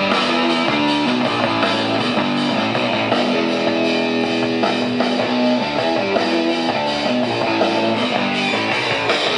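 Guitar-led music played through a Cygnus AC-200 stereo amplifier and IBS loudspeakers, heard in the room. It plays steadily at a loud, even level.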